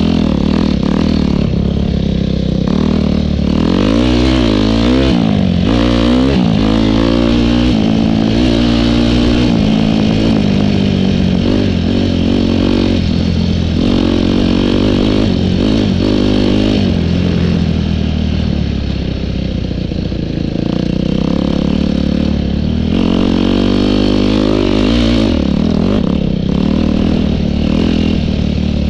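Enduro dirt bike engine running under load on a rough dirt trail, its revs repeatedly rising and falling as the rider works the throttle and gears.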